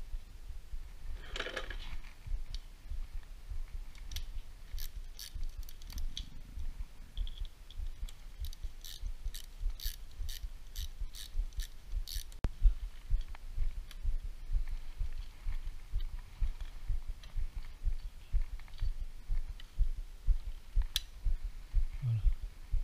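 Hand tools and metal parts being worked on a motorcycle's cylinder head: a run of sharp metallic clicks, a few a second, from about four seconds in to about twelve, over low knocking handling noise, with a brief scrape near the start.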